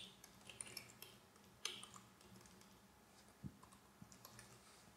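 Faint computer keyboard keystrokes, a few scattered clicks with pauses between them and a small cluster about three and a half seconds in.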